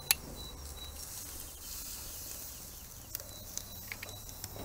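A short metallic click at the start as grill tongs let go of the meat on the grate, then faint outdoor ambience with a few soft high chirps and small ticks in the last second or so.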